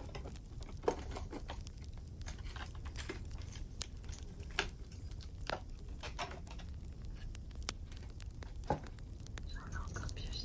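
Wood fire crackling: irregular sharp pops and snaps over a steady low hum.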